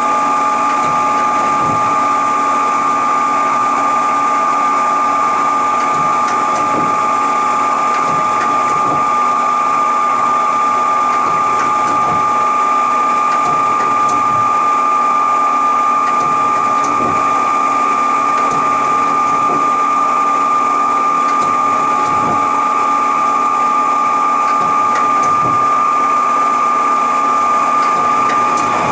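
1997 Bridgeport Powerpath 15 CNC lathe powered up and running, giving off a steady mechanical whine made of two constant tones over a light machine hum.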